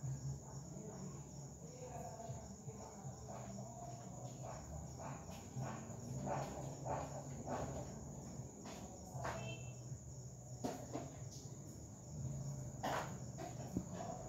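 Background noise with no speech: a steady high-pitched tone or chirring, a low hum, and scattered light knocks and clicks.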